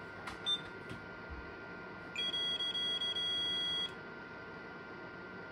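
Multimeter continuity beeper sounding a steady electronic beep for just under two seconds, starting about two seconds in, with a few brief dropouts as the probe contact flickers. This is typical of checking connections pin by pin. A faint steady high tone sits underneath throughout.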